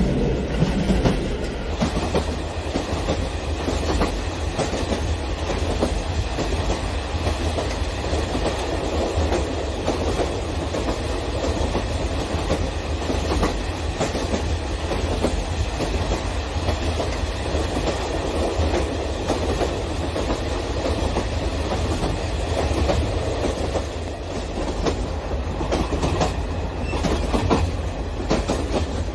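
Electric model trains running on plastic track: a steady rumble with rapid clatter of many small wheels over the rail joints as long strings of tank cars and ore hoppers roll past close by. The clicks grow more distinct near the end.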